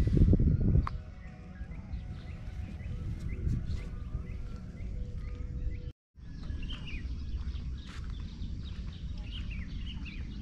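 Birds chirping in short, repeated calls over a steady low rumble, which is louder in the first second. The sound drops out completely for a moment about six seconds in, then more chirping follows.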